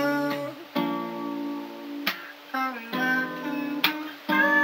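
Background music: a plucked guitar, notes and chords struck every half-second to second and left to ring.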